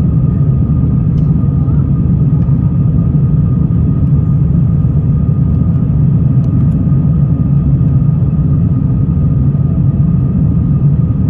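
Steady airliner cabin rumble inside an Airbus A350-1000, a constant deep roar of engines and airflow with a faint steady whine above it.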